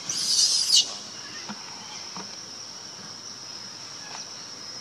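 Insects droning in one steady high note, with a brief loud hissing burst lasting under a second at the start and a few faint clicks later.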